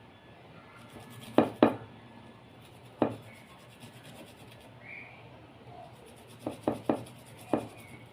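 Garlic being grated by hand on a grater: soft rubbing broken by scattered sharp knocks, with a quick run of three knocks near the end.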